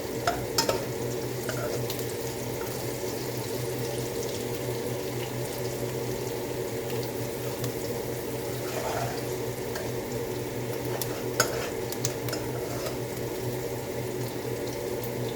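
Water running from a kitchen tap into a sink, steady over a low hum, with a few sharp clinks of utensils near the start and about eleven seconds in.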